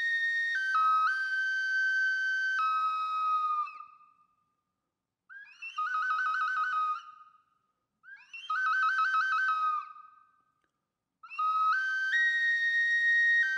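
Solo flute playing a slow melody of long held notes that step up and down. Short pauses break the phrases, and two brief trilled phrases come in the middle.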